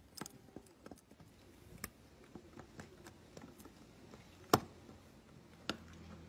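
Metal tweezers clicking and tapping against the internal parts of an opened iPhone: a string of faint irregular ticks, with one sharp click about four and a half seconds in and a smaller one a second later.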